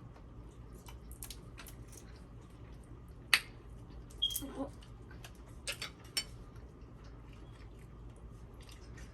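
Eating seafood at the table: scattered sharp clicks and taps of shells and utensils with chewing, one click about a third of the way in standing out as the loudest, and a short voiced murmur just after it.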